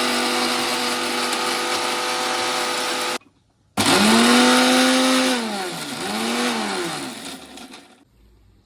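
Electric mixer grinder (mixie) grinding garlic, onions and spices in two runs. It whirs steadily for about three seconds, stops briefly, then runs again, slowing, picking up once more and winding down to a stop: pulsed for a coarse grind.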